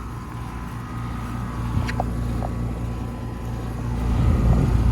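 Rheem Endeavor Line Select Series 2-ton central air conditioner condensing unit running: a steady hum and fan noise, growing louder about four seconds in.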